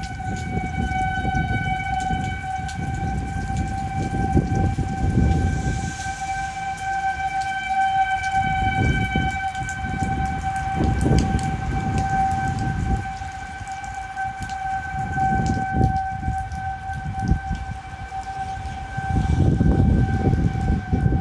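Outdoor tornado warning siren sounding one steady tone, its pitch starting to drop at the very end as it winds down. Gusts of wind buffet the microphone.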